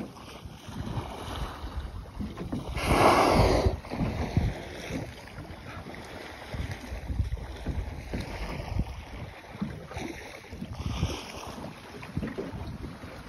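Humpback whale blowing at the surface: one loud rushing exhalation lasting about a second, about three seconds in, and a fainter second blow near the end. Water slaps against the boat and wind buffets the microphone.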